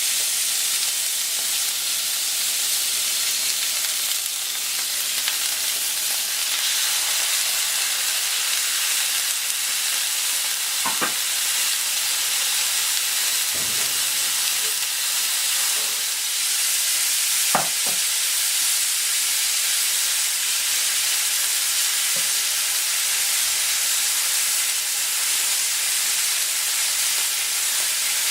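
Food sizzling steadily in oil on a hot plancha griddle, a continuous frying hiss, with two brief sharp sounds from the cooking about a third of the way in and again past the middle.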